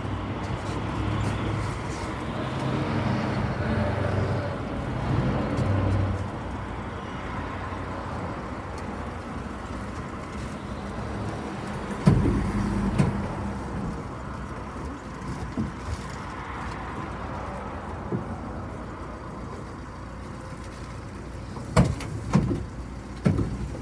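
Engine and cabin noise of a city bus on the move, heard from inside. The engine is loudest in the first six seconds, then eases to a steadier, quieter rumble. A sharp knock comes about halfway through, and a few more knocks come near the end.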